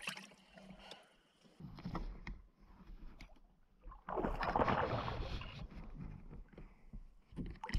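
A brief splash of water at the canoe's side as a released smallmouth bass swims off from the hand, then a louder rush of noise about four seconds in that fades over a second or two.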